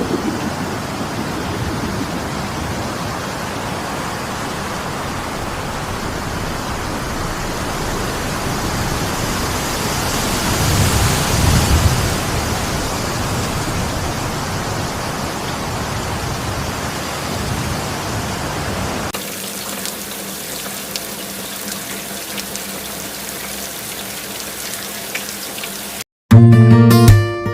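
Steady rushing noise of outdoor nature ambience, growing louder about a third of the way in and stepping down to a quieter hiss after a cut about two-thirds through. Near the end it cuts out, and strummed acoustic guitar music starts.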